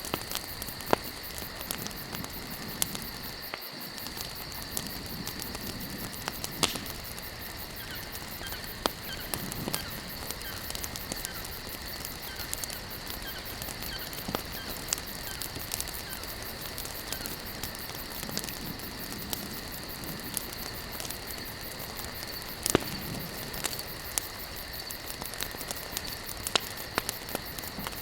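Wood campfire burning, with sharp pops and crackles scattered irregularly over a steady hiss, and a faint, steady high-pitched whine running beneath it.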